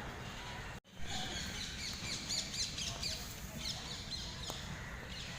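Small birds chirping and twittering in quick, high, repeated notes. The chirping starts right after a brief gap in the sound about a second in and is busiest in the middle. A steady low rumble of background noise runs underneath.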